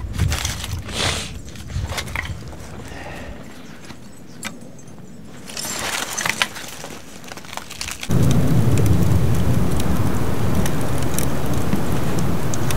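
Kindling and split logs crackling and snapping as a fire catches in a small steel wood-burning stove, with scattered sharp pops. About eight seconds in, a loud steady rushing noise starts abruptly and holds.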